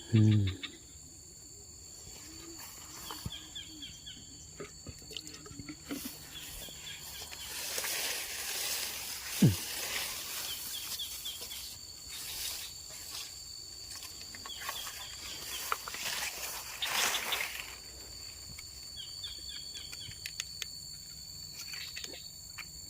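Rural outdoor ambience: a steady high insect drone, with a bird's short chattering call repeating every few seconds. A brief loud low sound at the start, a short falling sound about nine and a half seconds in, and two swells of hiss.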